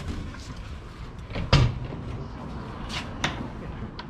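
Door clunks from a fire rescue truck's crew cab being opened: a loud latch clunk about one and a half seconds in, then two lighter knocks near the end, over a steady low hum.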